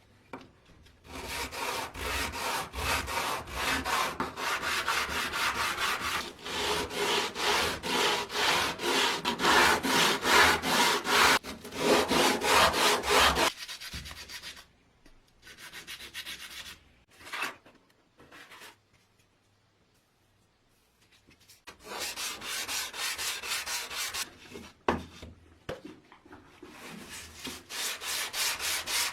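Hand sanding of wood: sandpaper rubbed in quick back-and-forth strokes, in a long spell, then short bursts, a pause of a few seconds, and two more spells.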